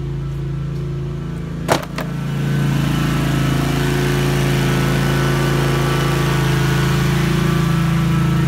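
A rotary floor burnisher running with a steady, engine-like drone that sounds like someone mowing the lawn, growing louder about two and a half seconds in. Two sharp clicks a little under two seconds in.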